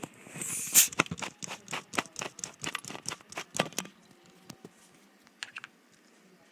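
Rapid clatter of small clicks and knocks from objects being handled and moved about, with a brief rustle about half a second in. The clicks thin to a few scattered ones after about four seconds.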